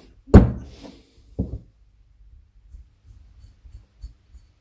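A spanner unscrewing the main jet from an Amal Concentric carburettor. It gives one sharp metallic click about a third of a second in, then a softer knock about a second later, then faint small clicks as the parts are handled.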